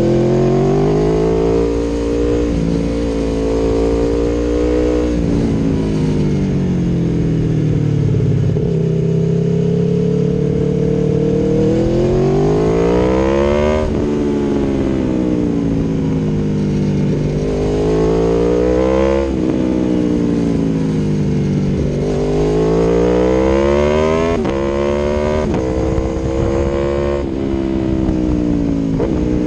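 Aprilia Tuono V4 1100's V4 engine through an Akrapovic exhaust, riding under acceleration. Its pitch climbs and then drops sharply several times, as it would on throttle changes and gear shifts.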